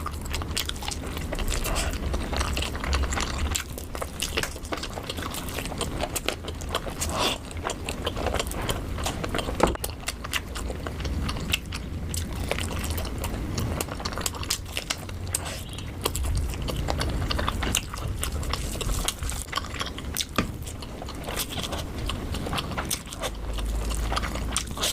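Close-miked eating sounds: steady chewing and biting with many small wet clicks.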